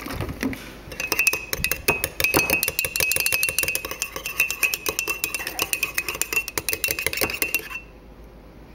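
Metal spoon stirring a thin sauce in a ceramic mug, clinking rapidly and continuously against the sides with a steady ringing note. It starts about a second in and stops shortly before the end.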